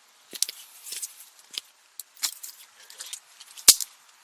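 Irregular small clicks, light clinks and rustling, with one sharp snap about three and a half seconds in.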